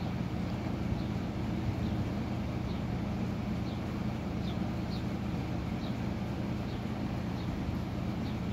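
Encon Monarch 52-inch ceiling fan running with a steady motor hum, with faint short high chirps about once a second.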